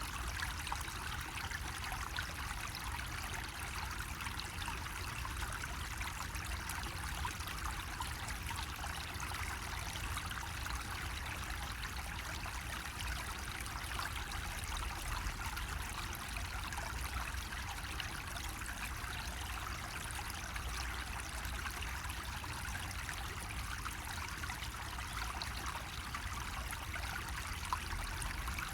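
Water running steadily from a bamboo spout and trickling and splashing into the water below, a continuous, even flow.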